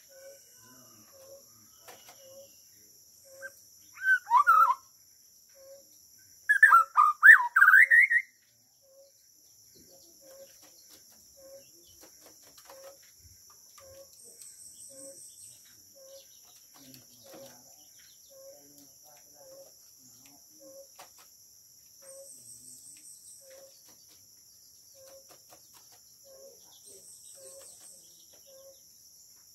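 White-rumped shama of the Bornean 'murai borneo' type, caged, singing two short loud bursts of quick sweeping notes, about four and seven seconds in. Under it run a steady high insect drone and a faint soft note repeating about every half second.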